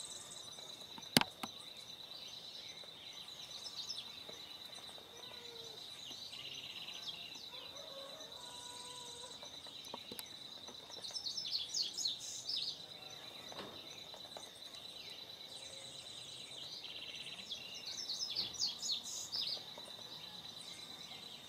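Birds singing at dawn: bursts of quick chirping twitter, loudest a little past the middle and again near the end, with shorter buzzy trills between, over a steady high-pitched whine. A single sharp click about a second in.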